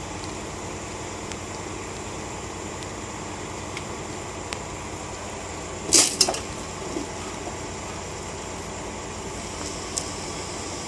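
Heavy-haul truck's diesel engine idling steadily, with two sharp knocks about six seconds in and a lighter knock near the end.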